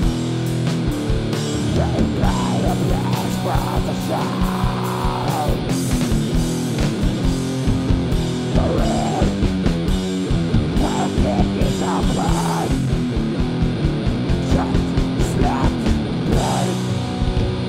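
Loud rock music: electric guitars over a steady drum beat.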